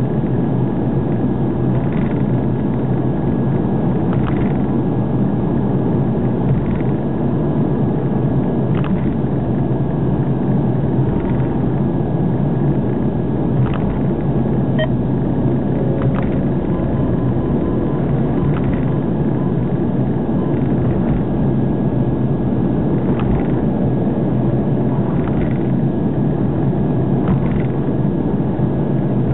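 Car driving at speed on an expressway: steady low road and engine rumble, with faint ticks every couple of seconds.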